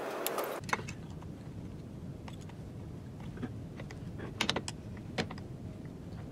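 Hand assembly of a web guide actuator: small metal clicks and taps as parts are fitted and bolts turned with T-handle hex keys, with a quick cluster of clicks about four and a half seconds in. A steady hiss cuts off abruptly about half a second in.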